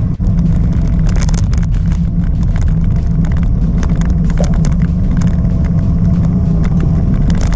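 Strong wind buffeting the microphone of a moving bicycle rider: a loud, steady low rumble, with scattered light clicks and a brief drop just after the start.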